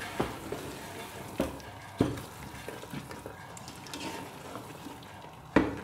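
A spatula stirring thick potato and eggplant curry in an aluminium pressure cooker, knocking against the pot a few times, loudest near the end, over a faint sizzle.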